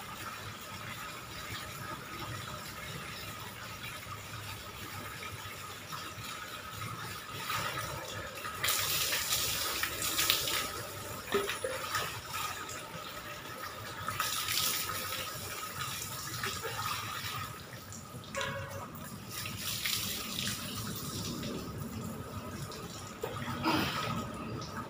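Water running steadily from a tap into a plastic bucket, with several louder splashes as a plastic dipper scoops water from the bucket and it is poured over the body onto a wet concrete floor: a bucket bath.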